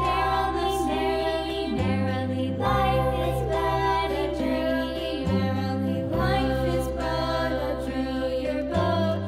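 Background children's music with singing over a bass line that changes note every two to three seconds.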